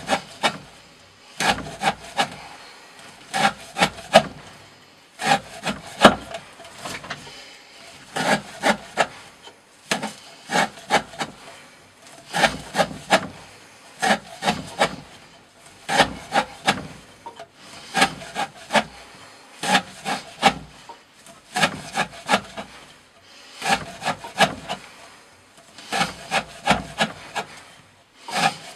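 A Green Thorn Hati knife's D2 steel blade cutting through 20 mm rope again and again, each cut a short burst of several rasping strokes, about one cut every two seconds.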